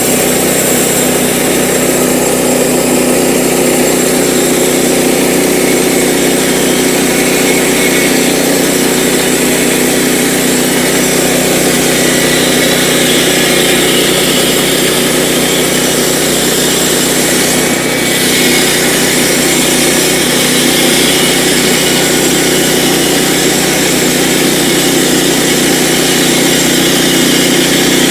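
Engine-driven sawmill running steadily while its blade cuts through a log.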